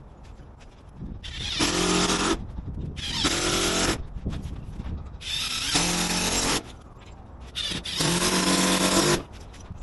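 A handheld power drill running in four short bursts of about a second each, with pauses between.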